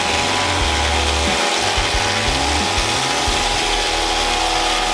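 Industrial thickness planer running and planing a wide wooden board, a loud, steady machine whir of the cutterhead taking wood off.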